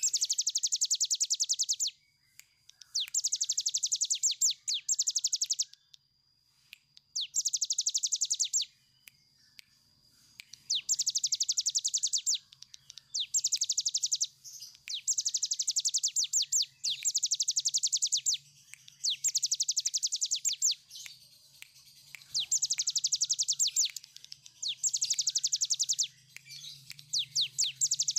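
Cigun (brown prinia) singing its long rolling trill ('ngebren'): rapid strings of high clicking notes, each bout one to two seconds long, repeated about ten times with short pauses between.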